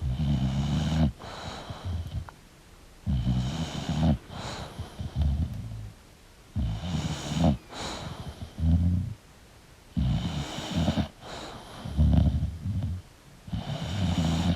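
English bulldog snoring in its sleep, about five breaths in a steady rhythm roughly every three and a half seconds. Each breath is a loud, low snore in two parts: a longer one, then a shorter one.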